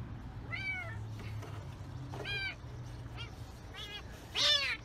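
Kitten meowing repeatedly, about five cries, each rising then falling in pitch, the last and loudest near the end. These are the distress calls of a kitten trapped in a car's engine compartment.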